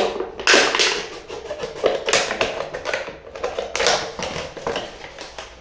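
Scissors cutting through a thin clear plastic bottle: a run of irregular sharp snips, one or two a second, with the plastic crackling between them.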